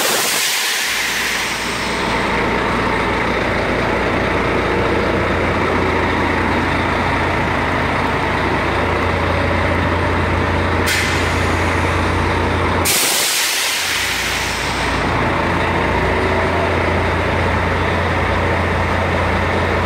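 Scania R420 truck's six-cylinder diesel engine idling steadily, with bursts of compressed air hissing from its air system: one at the start that fades over about two seconds, a short one about eleven seconds in, and another loud one a couple of seconds later.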